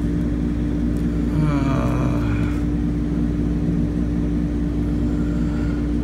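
Steady hum of running machinery with a constant low tone, and a brief muffled voice about a second and a half in.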